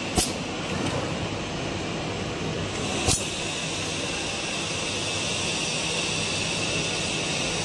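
Rawhide stick forming machine running with a steady mechanical whir and hiss, and a sharp clack twice, about three seconds apart, as it cycles.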